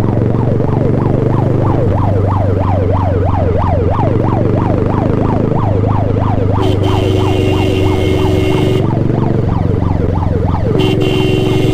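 Ambulance siren wailing in fast rising-and-falling sweeps, about two to three a second, over a steady engine hum. In the second half a steady horn sounds twice, each time for about two seconds.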